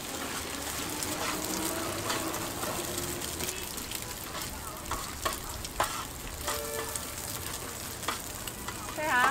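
Eggs and chopped onion sizzling in oil on a flat iron griddle, with a metal spatula scraping and clacking against the plate as the eggs are chopped and stirred.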